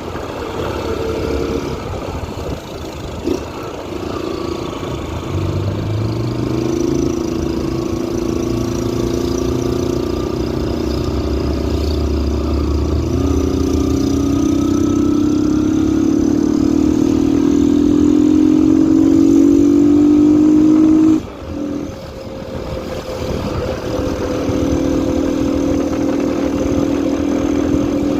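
Yamaha XTZ single-cylinder motorcycle engine, run without an air filter and with a washer fitted in the exhaust outlet, accelerating under way. Its pitch climbs in two long pulls, then drops sharply about two-thirds of the way through as the throttle is closed, before it settles into a steady run.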